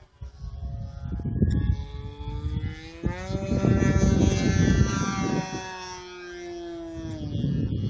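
OS .55AX two-stroke glow engine with a Pitts-style muffler, spinning a 13x6 propeller on a radio-controlled model airplane in flight, running at high revs. Its pitch rises about three seconds in and drops again after about five and a half, over a gusty low rumble.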